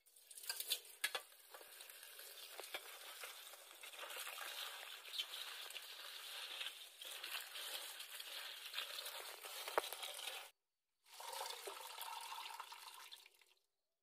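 Tap water pouring into a steel bowl of shredded cabbage as hands stir and rinse it, a steady splashing. A few sharp knocks come about a second in and again near ten seconds. The splashing breaks off briefly about ten and a half seconds in, then resumes and stops near the end.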